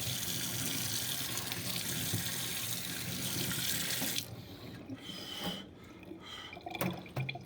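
Kitchen sink tap running as green onions are rinsed under it, shut off abruptly about four seconds in. A few light knocks and drips follow.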